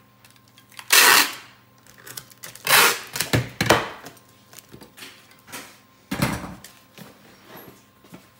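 Packing tape being pulled off a handheld tape dispenser to seal a cardboard box: four short, loud ripping rasps, the first about a second in and the loudest, with light knocks of the box and dispenser on the counter between them.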